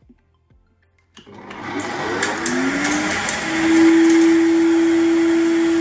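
Empty 2200 W professional blender switched on about a second in. Its motor spins up with a rising whine, then runs loud at a steady high pitch.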